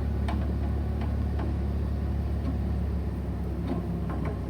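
A steady low motor-like hum with a few light metallic clicks.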